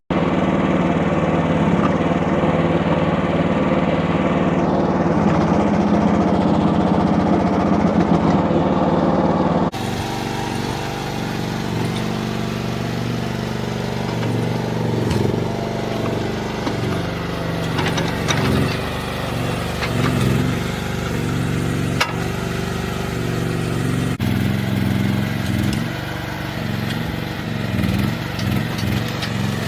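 An engine running steadily, changing abruptly about ten seconds in and then running less evenly, with occasional knocks.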